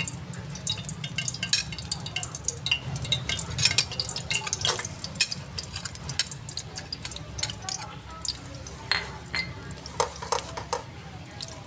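A metal spoon scrapes a sticky paste off a ceramic plate into a non-stick pan and stirs it in the hot pan, making many sharp clicks and scrapes over a steady low hum.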